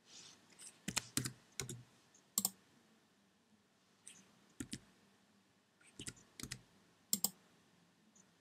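Computer keyboard keys and a mouse button clicking in short clusters of sharp clicks, as numbers are typed into a field and a button is clicked.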